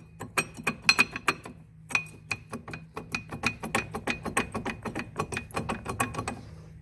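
Rapid metallic clicking and clinking, about five or six strikes a second, as the brake pads are worked loose and pulled out of the caliper carrier.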